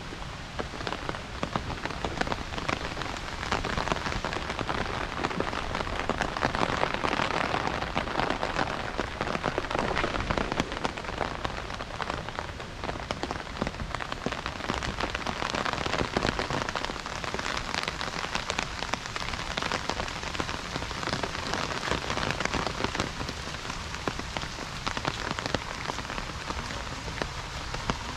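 Steady rain falling, with many sharp ticks of close drops hitting a surface over a continuous hiss.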